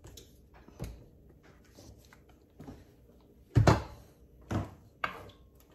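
Three or four short knocks and thumps of things being handled in a kitchen, the loudest about three and a half seconds in, with quiet between.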